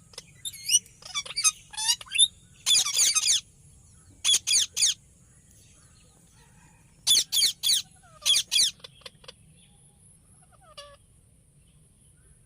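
Indian ringneck parakeet calling: shrill squawks in quick runs of two to four, with pauses of a second or more between runs and only a few faint calls in the last few seconds. A steady high hiss runs underneath.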